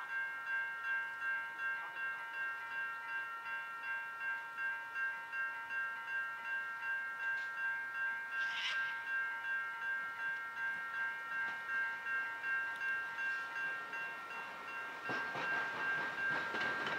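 Level crossing warning bells ringing in an even pulsing rhythm of about two strokes a second, warning of an approaching train. Near the end the noise of an approaching steam locomotive rises beneath them.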